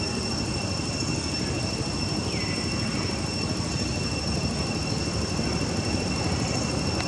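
Insects droning steadily at a constant high pitch over a steady low rushing noise, with one short falling call about two and a half seconds in.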